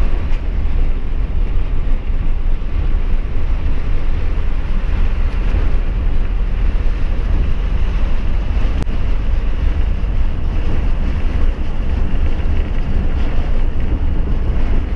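Steady low rumble of a truck's engine with road and wind noise, heard inside the cab of the moving truck.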